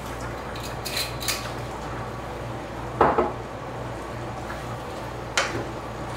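Cooking utensils clinking and knocking against a pot or pan: a few light clicks about a second in, a louder knock about three seconds in, and another sharp one near the end. A steady low hum runs underneath.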